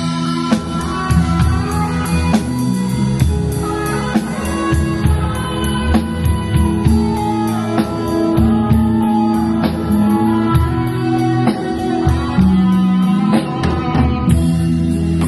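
Live rock band playing an instrumental passage: drum kit keeping a steady beat under electric guitar lines and sustained low bass notes.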